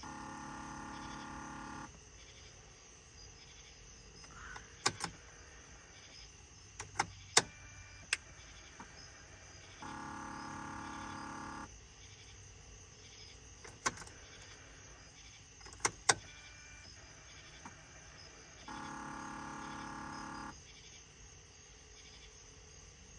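Electronic warning tone in a truck cab with the ignition on, sounding three times for about two seconds each, roughly nine seconds apart, as the newly wired gauges power up. Several sharp clicks, singly and in quick pairs, fall between the tones and are the loudest sounds.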